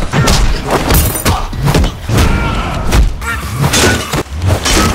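A rapid run of hits, thuds and crashes from staged fight stunts, several a second, with something shattering among them.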